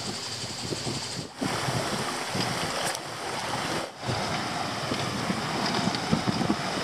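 Wind on the microphone and water rushing along the hull of a sailboat under way, a steady rushing noise that cuts out briefly twice.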